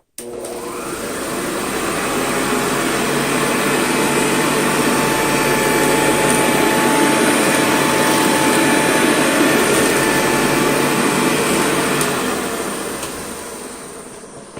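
Early-1970s Hoover Convertible upright vacuum cleaner switched on, its motor spinning up over the first few seconds, then running steadily with its nozzle set all the way down on a bare floor. About twelve seconds in it is switched off and winds down.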